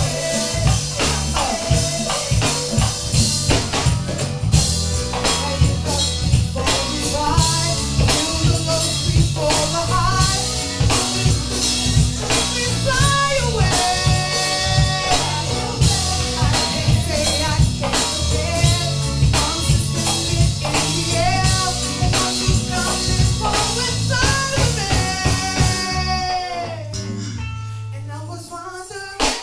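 Background music: a band track with a steady drum-kit beat, bass and a melodic lead line, which thins out and drops away near the end before music starts again.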